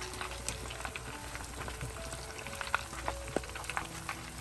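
Shrimp deep-frying in hot oil: a steady sizzle with many small crackles and pops.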